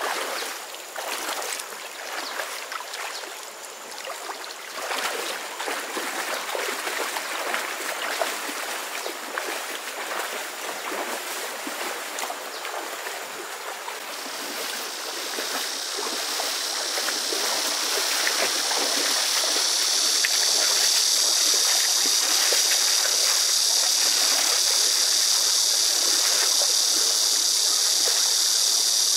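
Shallow stream water: uneven splashing and sloshing in the first half, then a small stream trickling and rushing over stones, growing louder and steady from about halfway.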